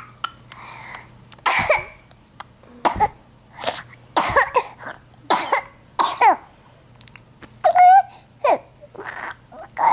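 A little boy fake-coughing: a string of short forced coughs one after another, several of the later ones carrying a high voiced sound.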